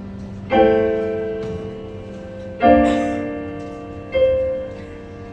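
Casio digital piano playing three slow chords, struck about two seconds apart and left to ring and fade.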